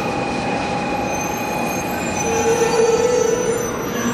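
700 series Shinkansen train rolling slowly into the platform and drawing to a stop, with a steady whine at several pitches that swells for a moment about halfway through.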